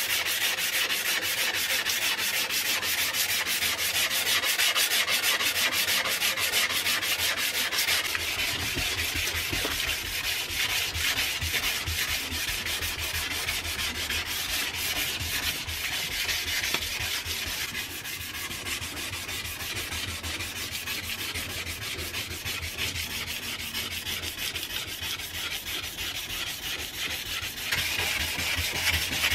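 Sandpaper on a hand sanding block scraping back and forth over a steel cleaver blade in quick, steady strokes. About eight seconds in the scrape turns duller, with a low rumble under it, and it brightens again near the end.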